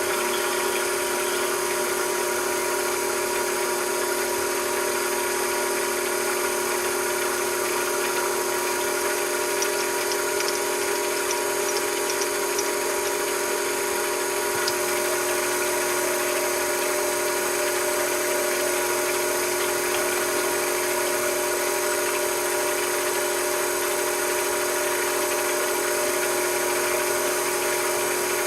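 A small machine tool's electric motor running at a steady speed, a constant whine and hum that does not change, with a few faint ticks about halfway through.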